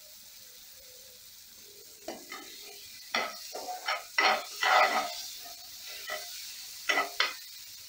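Steel spatula stirring and scraping shallots, tomatoes and green chillies around a non-stick kadai, in a run of strokes starting about two seconds in, over a light sizzle of frying in oil.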